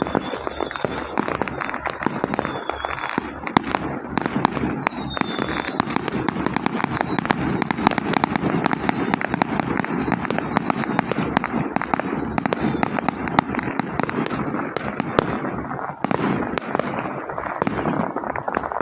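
A long string of firecrackers going off in a rapid, continuous crackle of pops, with a brief lull about sixteen seconds in.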